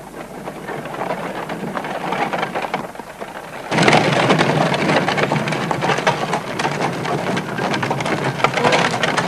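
Horse-drawn carriage on a gravel drive: wheels and hooves crunching in a steady, dense crackle. It grows clearly louder about four seconds in.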